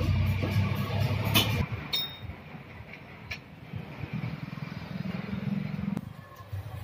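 A low, uneven engine rumble with a few sharp metallic clicks, one of them ringing briefly; the rumble fades in the middle, returns, and cuts off suddenly near the end.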